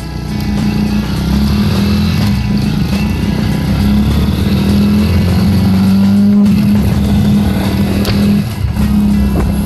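Honda Super Cub's small single-cylinder four-stroke engine running at a steady speed under way, with a brief dip about six and a half seconds in.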